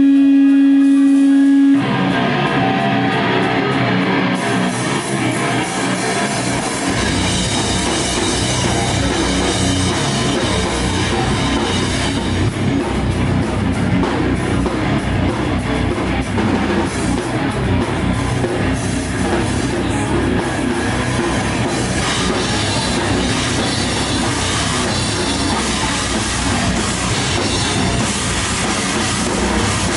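Live rock band playing with guitar, bass and drum kit, in a heavy style. A single held tone gives way about two seconds in to the full band, and the low end fills in around seven seconds.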